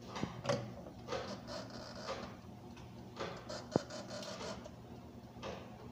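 Clicks and rubbing from the plastic control knobs of a halogen convection oven being turned to set it, with a sharper click just under four seconds in.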